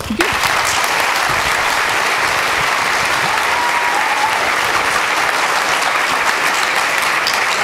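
A large audience clapping, a steady applause that starts sharply right after the talk ends.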